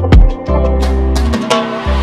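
Background music with a kick drum and held bass notes under a steady melody.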